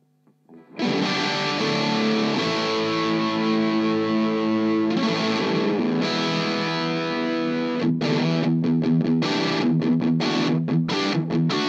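Electric guitar played through an Amptweaker FatRock distortion pedal and amp, with a heavy distorted tone. Long ringing chords come in about a second in, then give way to short, choppy stabs with brief gaps between them over the last few seconds.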